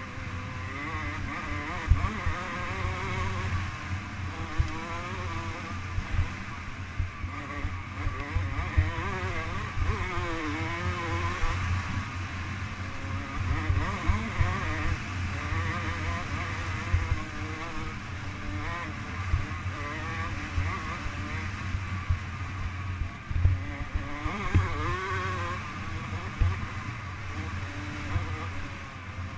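Off-road motorcycle engine running hard at racing speed, its pitch wavering up and down as the throttle is worked, with wind noise on the onboard camera microphone and frequent short low thumps from the rough ground.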